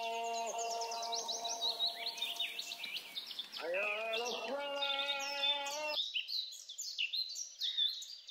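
Songbirds chirping and trilling in quick, repeated calls, over a held pitched tone with several overtones that cuts off abruptly about six seconds in; the chirps carry on alone and fade at the end.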